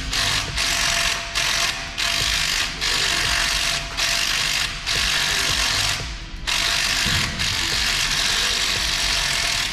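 Pneumatic impact gun run in repeated bursts with short breaks, the longest pause about six seconds in, backing out a stuck bolt at the front hub of a 2013 Ford Explorer during a front brake job.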